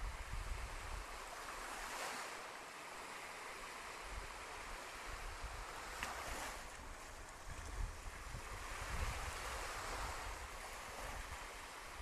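Gentle ocean waves washing onto a sandy beach, the surf swelling and easing every few seconds, with low rumbles of wind on the microphone.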